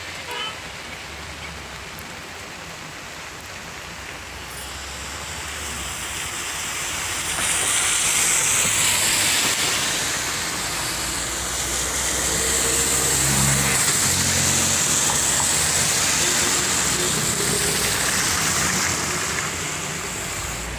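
Steady hiss of heavy monsoon rain falling on a wet road, swelling louder a few seconds in and staying loud.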